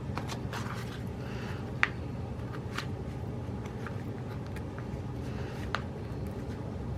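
Light paper rustling and a few sharp clicks and taps as planner stickers and pages are handled, over a steady low hum.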